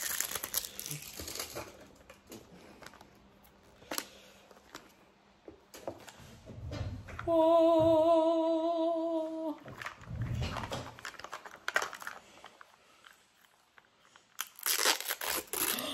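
Plastic wrap crinkling and tearing as a Mini Brands capsule ball is unwrapped and opened, with scattered rustles and clicks. About seven seconds in, a woman gives one long, wavering held vocal exclamation lasting about two seconds. Near the end, a printed foil wrapper crinkles as she unwraps a mini item.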